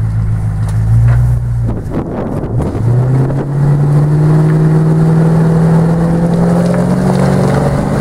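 Land Rover Discovery's engine pulling under load in deep mud: steady at first, then after a brief dip and a few knocks about two seconds in, the revs climb slowly.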